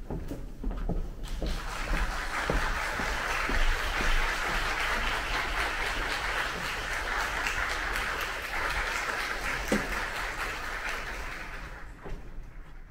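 Audience applauding, beginning about a second and a half in, holding steady, then fading away near the end. A few footsteps and knocks come just before it starts.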